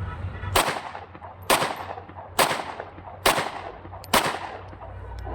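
Five 9mm pistol shots from a shop-built Glock 26 Gen 4 pattern pistol, fired evenly just under a second apart, each ringing off briefly. It is a test-fire through the second magazine.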